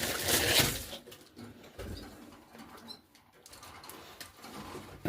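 Paper rustling and scraping as sandpaper is handled and fitted to a bird perch, loudest in the first second, then quieter handling with a few faint bird calls.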